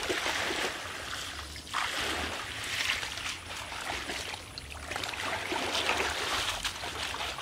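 Shallow muddy pond water sloshing and splashing as a plastic basin is dipped in and tipped out, rising and easing every second or two.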